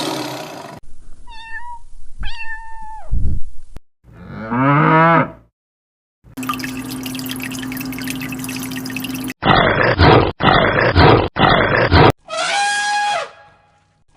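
A run of short, separate animal calls cut one after another: pitched whistling calls, a falling cry, three loud harsh calls in a row, then a goat-like bleat near the end.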